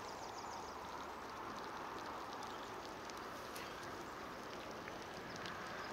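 Quiet, steady background hiss with a few faint ticks.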